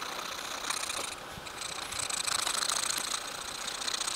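Timber lure blank being sanded by hand with sandpaper: fast, even rubbing strokes that stop briefly a little over a second in and then carry on.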